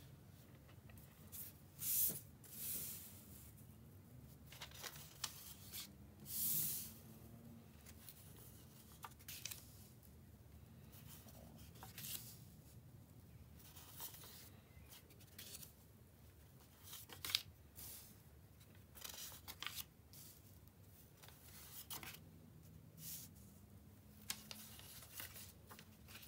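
Sheets of paper being handled and laid down one after another on a flat surface: irregular short papery swishes and taps, with longer, louder slides about two seconds in and again around six and a half seconds.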